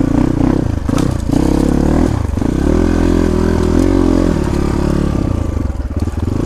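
Off-road motorcycle engine revving up and down under load, its revs held high through the middle, with a few sharp clatters and knocks as the bike is worked over rough ground.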